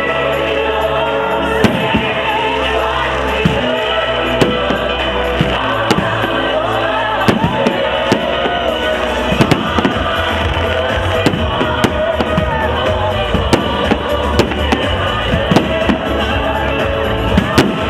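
Fireworks going off in many sharp bangs and cracks, coming thicker in the second half, over loud music.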